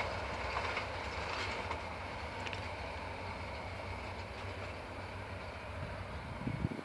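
Passenger train running away along the track, its rail rumble fading steadily, with a few low thumps near the end.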